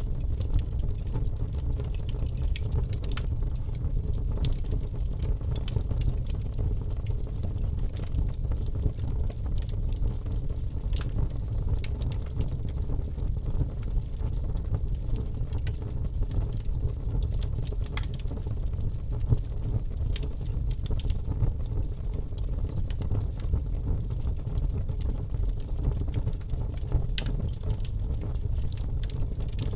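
Open wood fire burning: a steady low rumble with frequent sharp crackles and pops scattered throughout.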